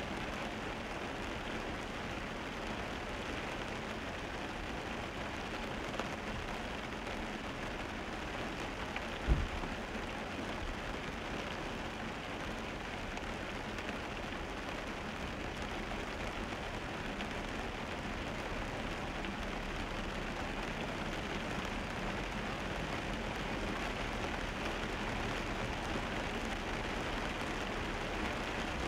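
Steady hiss of a car driving on a wet road in the rain: tyre and rain noise with no break, and a single low thump about nine seconds in.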